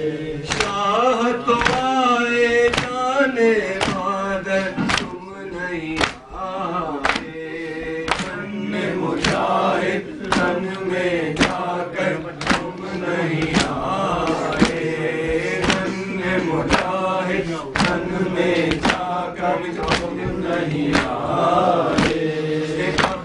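Male voices chanting a noha, a Shia mourning lament, over a steady beat of open-hand chest slaps (matam), roughly one to two slaps a second.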